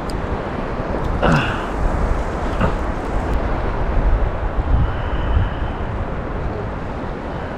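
Wind buffeting the microphone over gentle surf in shallow water: a steady low rumble and wash, with one short, sharper sound about a second in.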